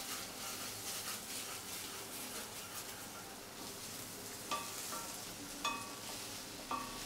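Arbi (colocasia) strips sizzling in oil as a spatula stirs and scrapes them around a stainless steel kadai. In the second half the spatula knocks against the pan three times, each knock ringing briefly.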